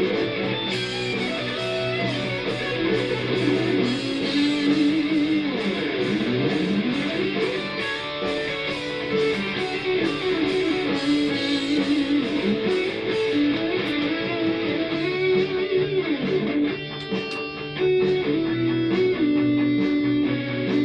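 Condor CLP1 electric guitar, run through the AmpliTube amp simulator, playing an improvised lead over a backing track with drums, all coming out of small PC speakers. The lead holds notes and bends and slides between them.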